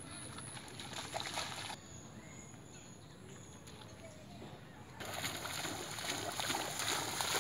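A dog running through shallow floodwater, its legs splashing and sloshing; the splashing turns louder and denser from about five seconds in.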